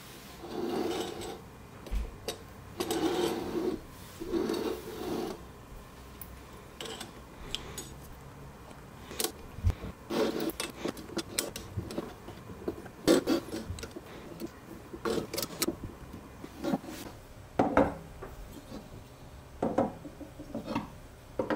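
Handling of an aluminium square-tube frame and metal corner blocks on a wooden workbench. A few seconds of scraping and sliding come first, then a run of uneven clicks and knocks as the metal parts are fitted together and set down on the wood.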